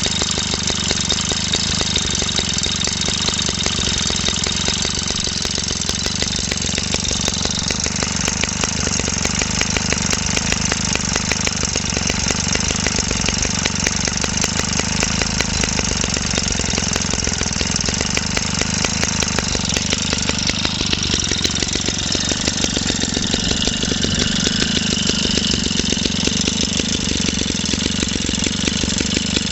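JAP Model 80 80cc single-cylinder stationary engine running steadily on its own, a fast even stream of firing beats. Around two-thirds of the way through the upper tone of the running shifts slightly, but the engine keeps running without a break.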